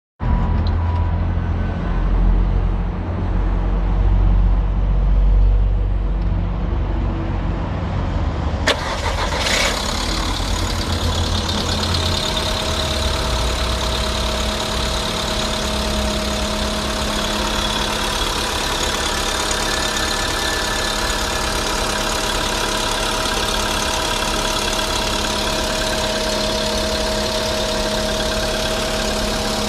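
VW/Skoda CFNA 1.6 four-cylinder petrol engine running just after a cold start, with the knock this engine is known for on cold starts. About nine seconds in there is a sharp click, after which the sound turns brighter and settles into a steady idle.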